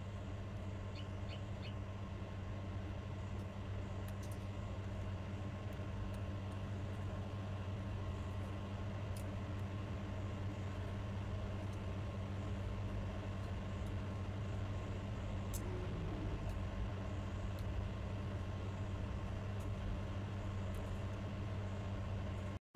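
Steady low background hum with a few faint, short clicks.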